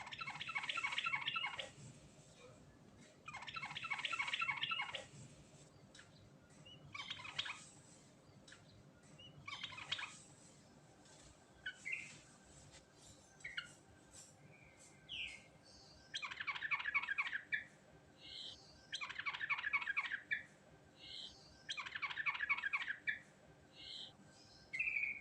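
Yellow-vented bulbul (burung trucuk) singing in repeated rapid, bubbly phrases about a second and a half long, five of them, with shorter single calls in between.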